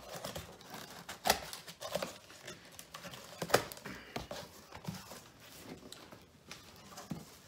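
Cardboard shipping box being opened by hand: rustling of the cardboard flaps and plastic wrap, with a few sharp knocks as the box is handled, the loudest about three and a half seconds in.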